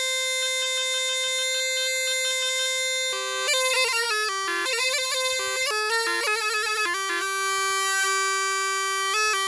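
Bagpipe music: a single reedy melody of long held notes broken by quick ornamented runs in the middle.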